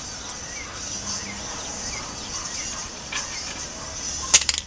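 Outdoor background of birds chirping in short falling notes over a steady high insect drone, with one sharp knock near the end.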